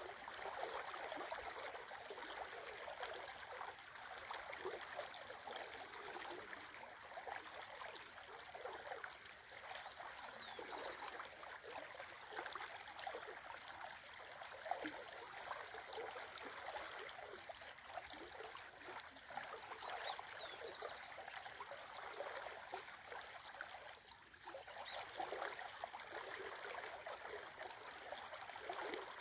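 Shallow river babbling over a riffle, a steady gurgling rush of water with many small splashes.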